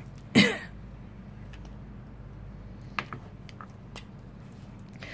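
Light clicks and taps from markers being handled while colouring on card stock, over a steady low hum. About half a second in there is one brief, louder sound with a falling pitch.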